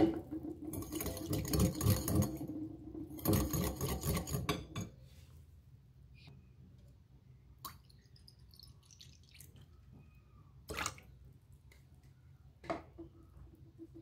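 Metal wire whisk stirring liquid in a glass bowl, splashing and clinking against the glass in two loud bursts in the first five seconds. It then goes quiet, apart from a faint trickle of liquid poured in from a plastic bottle and a couple of sharp knocks.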